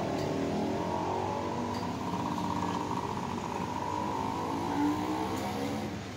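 Road traffic: vehicle engines running and passing in a steady mix, with a slight swell about five seconds in.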